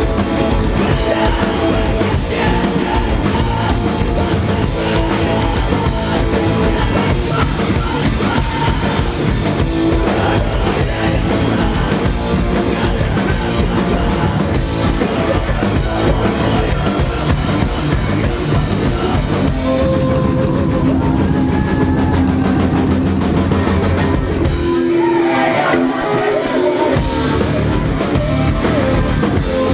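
A rock band playing live and loud, with a drum kit and guitar. The bass end drops out for about two seconds near the end, then comes back in.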